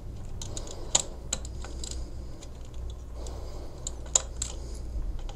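Small screwdriver turning a terminal-block screw down onto a wire, giving a scatter of light, irregular clicks and ticks.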